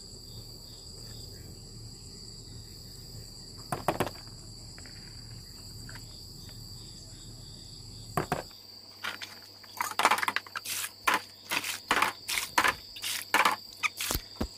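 Steady chirring of crickets, with a single splash about four seconds in. From about eight and a half seconds on, water is scooped and poured into a plastic washing basin in quick, repeated splashes.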